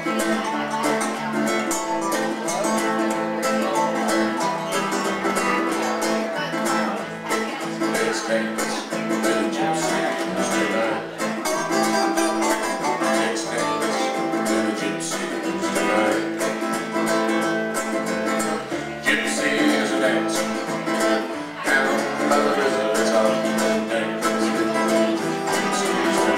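Live acoustic string band playing: a ukulele and an acoustic guitar picked and strummed together with a third stringed instrument, in a steady, continuous tune.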